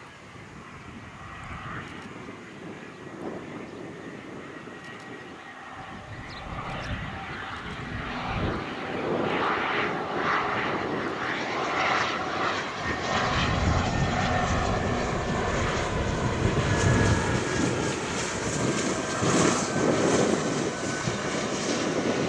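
A Bombardier Global Express business jet's twin Rolls-Royce BR710 turbofans coming in to land, the jet noise growing steadily louder as it approaches. In the second half a thin engine whine sinks slowly in pitch.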